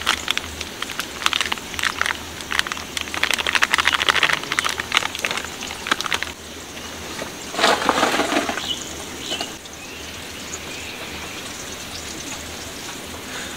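Corn fritters frying in hot oil, with dense, irregular crackling and spitting, then a louder rush of sizzle about eight seconds in, settling to a steady low hiss.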